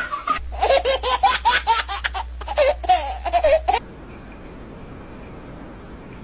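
Baby laughing in quick, high-pitched bursts for about three and a half seconds, then stopping, leaving a faint steady hiss.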